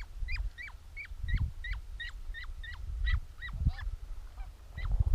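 Geese calling in a quick series of high, sharply falling yelps, about three a second, with low thumping rumbles underneath.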